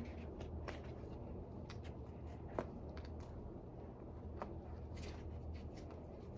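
Quiet room tone with a steady low hum and a few faint clicks and light rustles of handling.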